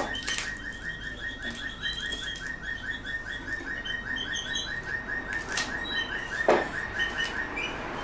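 Canary singing a long rolling trill of rapid repeated notes, with higher chirps over it, stopping near the end. A few sharp knocks come from the MDF nest box being handled, the loudest about six and a half seconds in.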